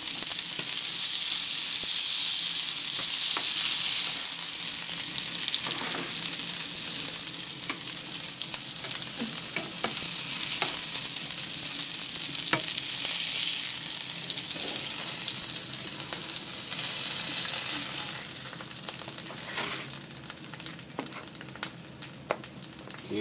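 Whole stuffed mackerels shallow-frying in hot oil in a pan: a steady sizzle with a few light clicks. The sizzle grows quieter over the last few seconds.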